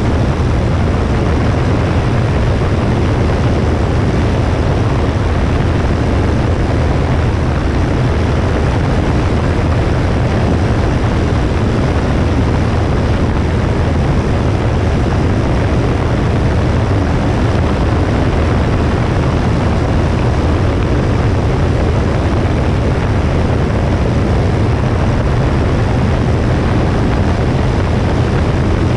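Steady wind rush on a wing-mounted camera's microphone, with the constant drone of a Cessna 172S's four-cylinder Lycoming engine and propeller.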